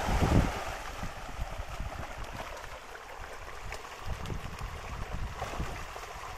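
A crowd of farmed fish splashing and churning at the pond surface as they snatch floating feed: a feeding frenzy. The splashing is loudest in the first half second, then settles into a steady patter.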